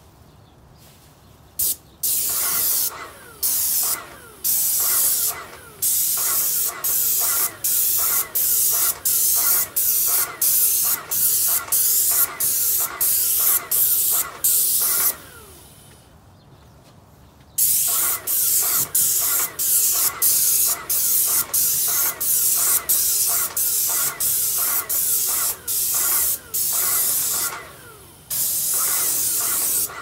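Paint spray gun hissing in short, regular bursts, about one and a half a second, as the trigger is pulled and released on each pass. The bursts stop for a couple of seconds about midway, then resume.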